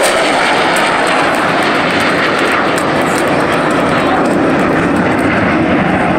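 Loud, steady jet noise from an F-16 fighter flying past during a high-speed pass.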